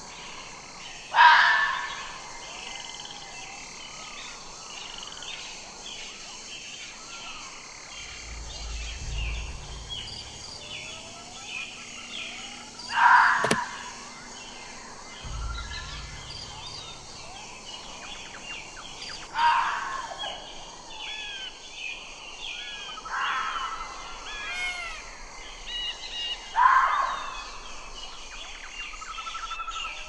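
Red fox giving short, loud single calls every few seconds, five in all, over a steady background of chirping birdsong.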